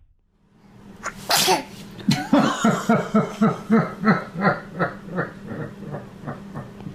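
A sneeze, then a run of rhythmic laughter, about three short beats a second, fading toward the end.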